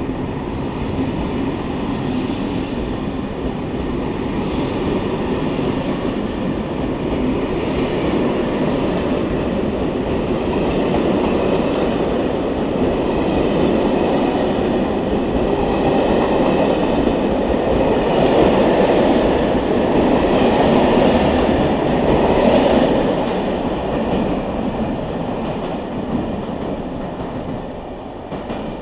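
Passenger train coaches rolling past close by: a steady rumble of wheels on rails. It swells to its loudest a little after twenty seconds, then dies away near the end as the last coaches pass.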